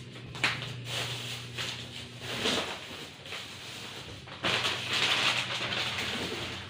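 Clear plastic packaging crinkling and rustling as it is handled and pulled out of a cardboard box, with a few sharp crackles; loudest for a couple of seconds in the second half.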